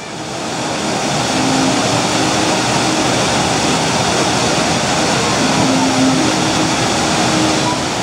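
Steady rush of water cascading over the ledge of a fountain wall, fading in at the start, with faint voices from a crowd.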